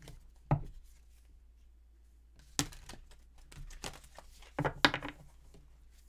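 A deck of tarot cards handled and shuffled by hand: a single tap about half a second in, a sharp card snap near the middle, and a short flurry of shuffling cards about two-thirds of the way through.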